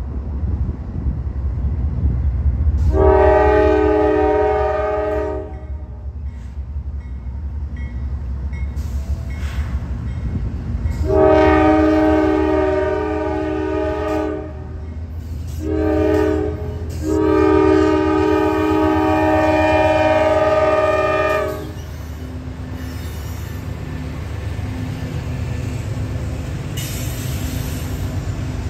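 Diesel freight locomotive's air horn sounding the grade-crossing signal, long, long, short, long, over the steady low rumble of the engine as the train approaches. After the last blast the locomotive rumbles past, with the sound of its wheels on the rails.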